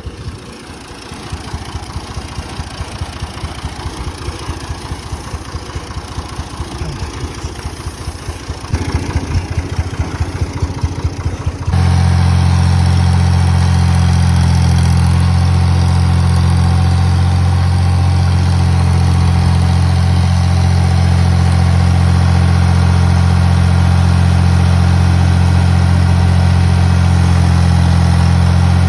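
An engine running. First comes a rhythmic low chugging that grows louder after about nine seconds. Then, about twelve seconds in, it changes abruptly to a loud, steady low hum.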